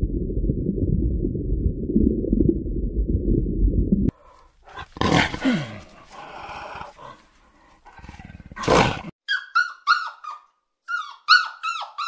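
A steady low rumble for about four seconds stops suddenly. It gives way to a leopard growling in two loud, rough bursts. From about nine seconds in, play-fighting dogs give quick, short whining yips that rise and fall.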